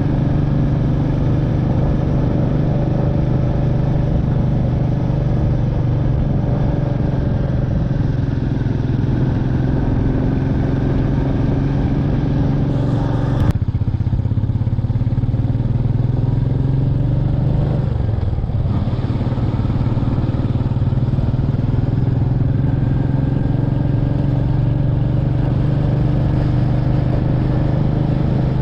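Royal Enfield Meteor 350's single-cylinder engine running steadily under way, its exhaust note rising and falling a little with the throttle. There is one sharp click about halfway through and a brief dip in the engine note about two-thirds of the way in.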